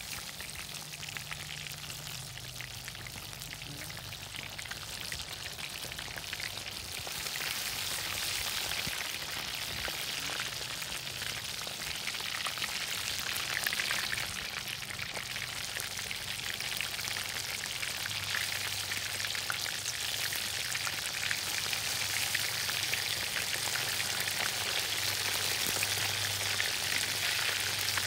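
Breaded fish deep-frying in hot oil in a cast iron skillet: a dense crackling sizzle that grows louder about seven seconds in and stays strong, with a faint steady low hum underneath.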